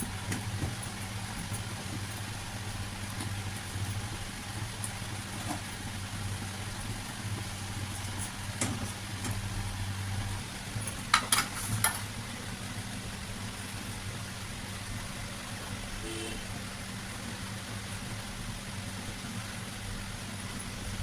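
A steady low mechanical hum, with a few sharp clicks about eleven and twelve seconds in.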